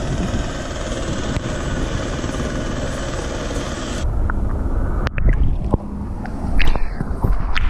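Steady rushing noise, which changes sharply about four seconds in to a lower, gusty buffeting of wind on the microphone, with a few sharp knocks.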